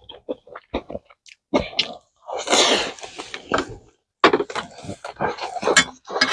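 Close-miked chewing with wet lip smacks and clicks as a mouthful of rice and pork belly is eaten. Near the end come sharper clicks as metal kitchen scissors and tongs are handled over the pan.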